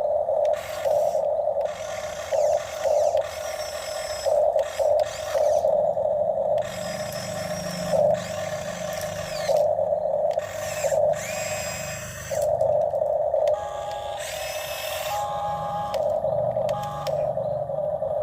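Electric motors of a Huina RC excavator whining in short runs that start and stop as its arm and bucket are worked, with brief scraping noises between.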